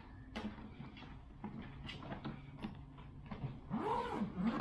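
Hard-shell carry-on suitcase being handled and tipped over, with light clicks and knocks from its shell, handle and spinner wheels. Near the end comes a brief sound that rises and then falls in pitch.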